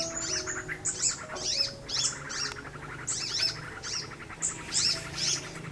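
Small birds chirping busily, a rapid string of short calls that slide down in pitch, over faint soft background music with slow sustained notes.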